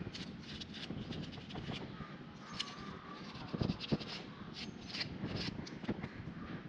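Scattered light clicks and taps of small metal parts and tools being handled during a scooter brake job, with two louder knocks about three and a half and four seconds in.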